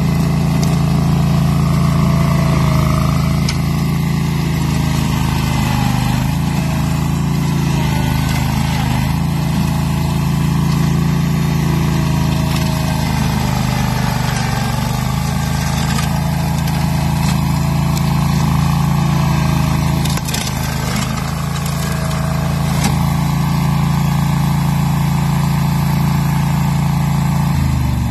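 AS-Motor AS 830 Enduro 14 hp ride-on brush mower running steadily at working speed as it mulches through shrubs and tall grass. Right at the end the engine note starts to drop as it slows.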